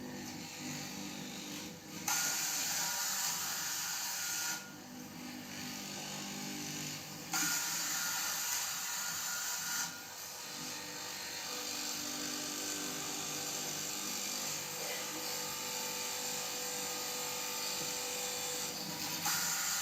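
Electric fabric cutting machine running steadily, its motor humming, growing louder and hissier in three spells as the blade cuts through the cloth.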